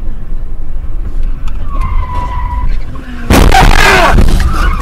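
A car crash heard from the dashcam car: steady road rumble, a short tyre squeal, then about three seconds in a sudden, very loud burst of screeching and impact noise lasting about a second.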